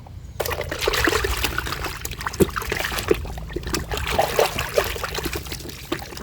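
Water sloshing, splashing and dribbling as a muddy toy vehicle is swished and shaken in a basin of clean water to wash it, in irregular splashes starting about half a second in.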